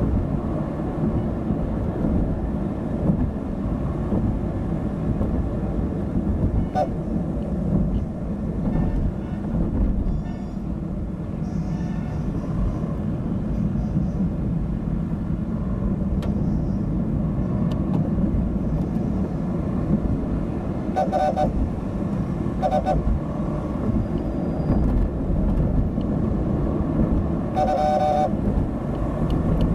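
Road traffic rumbling steadily, with vehicle horns honking: two short honks about two-thirds of the way in, then a longer honk and another near the end.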